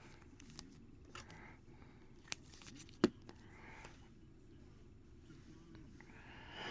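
Quiet handling of trading cards and plastic card holders: faint rustling with a few light plastic clicks, the sharpest about three seconds in.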